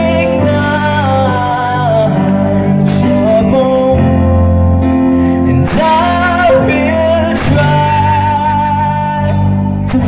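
Male vocalist singing live with a band of electric guitars, keyboard and drums, amplified through a PA system.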